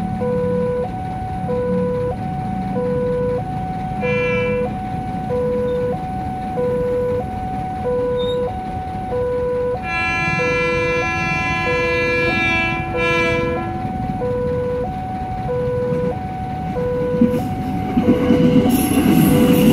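Electronic level-crossing alarm at a KRL commuter-line crossing, steadily alternating between a low and a higher tone, each about a third of a second long. A horn sounds briefly about four seconds in, and a longer horn sounds around ten seconds in, with two short breaks near its end. Near the end an electric commuter train arrives, and its low rumble and wheel noise swell over the alarm.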